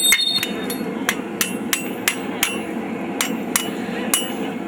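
Blacksmith's hammer striking hot steel on an anvil in a steady rhythm, about three blows a second, each with a bright metallic ring, over a steady low background noise.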